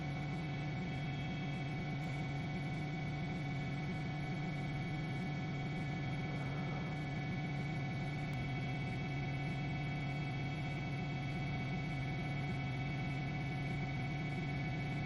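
A steady, unchanging low hum with several fixed tones over it.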